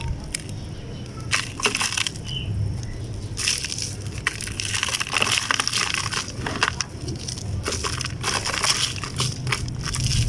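Damp chunks of crumbly material being crumbled and broken apart, an irregular run of soft crunching and crackling that grows densest from about four to nine seconds in.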